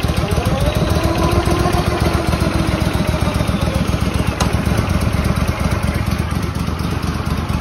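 Walker mower's OHV gasoline engine running steadily with a fast, even firing beat. It is running on only the fuel left in the carburetor, with no fuel supply hooked up.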